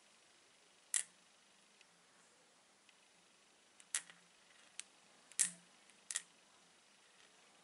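Neodymium magnet clicking against a hand-held stone in a magnet test for meteorites: about five short, sharp clicks at uneven intervals, the loudest about a second in and again about five seconds later.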